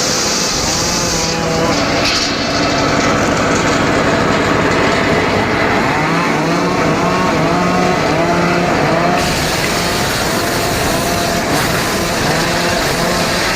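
Homemade circular saw running and cutting teak logs, a loud steady machine noise whose pitch dips and rises as the blade takes the wood.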